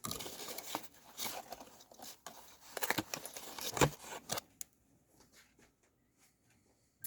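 Sock packaging being handled, rustling and crinkling with sharp clicks for about four and a half seconds, then going quiet.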